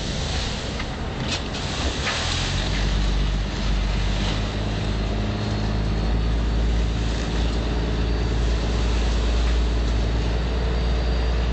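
A boat's engine running steadily with a low, even hum under a broad hiss of wind and water rushing past. A few short splashes or knocks come in the first three seconds.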